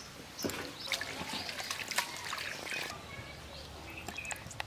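Water splashing and trickling in a steel basin as hands rinse goat intestines, running them through the fingers.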